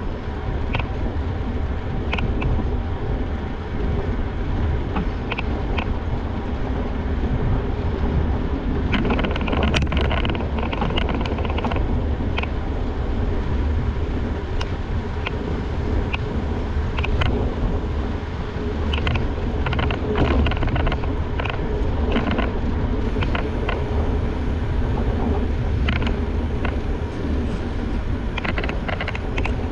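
Wind buffeting the microphone of a GoPro action camera on a moving mountain bike, over a steady rumble of tyres on the path, with scattered clicks and rattles from the bike over bumps.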